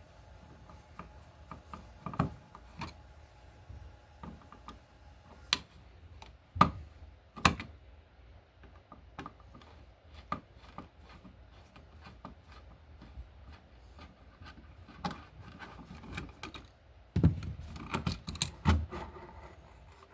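Irregular clicks, scrapes and sharp knocks of a screwdriver and plastic parts being handled, as a wall receptacle's cover plate and mounting screws come off and the outlet is worked out of its box. A cluster of louder knocks comes near the end.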